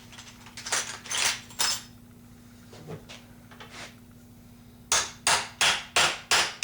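Hammer striking a brass punch to drive a greased lead slug into the muzzle of a Mauser rifle barrel. Three sharp strikes early, a few lighter taps mid-way, then a run of six quick strikes near the end, about three a second.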